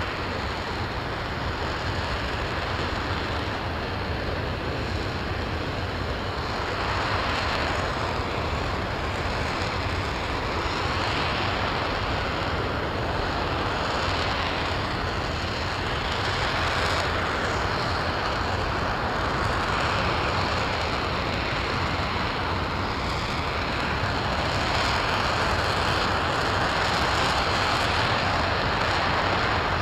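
RS-25 liquid-hydrogen/liquid-oxygen rocket engine firing steadily during a long-duration hot-fire test: a continuous dense rushing noise with a deep rumble underneath, getting slightly louder after about seven seconds and again near the end.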